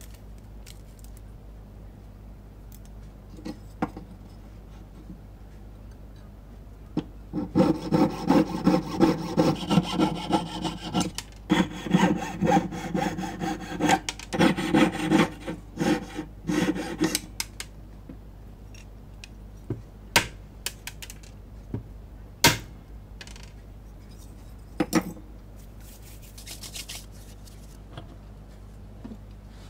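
A jeweller's hand tool working a small piece with quick back-and-forth rasping strokes, about two to three a second, for some ten seconds starting about seven seconds in. Scattered sharp clicks and taps follow as the piece is handled.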